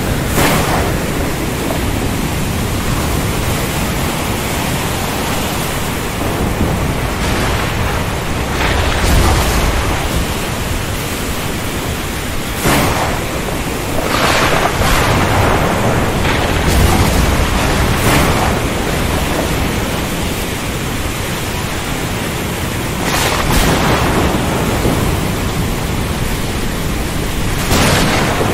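Thunderstorm over the sea: a steady rush of heavy rain and surf, broken by about six short, sharp cracks of thunder, with low rolling rumbles of thunder swelling about a third of the way in and again just past the middle.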